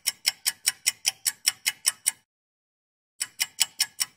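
Clock-ticking sound effect: sharp, evenly spaced ticks about five a second. They break off into dead silence about two seconds in and resume a second later.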